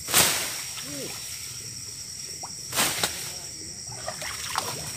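Two sloshing splashes about two and a half seconds apart, from feet wading through shallow water, over a steady high-pitched chirring of night insects.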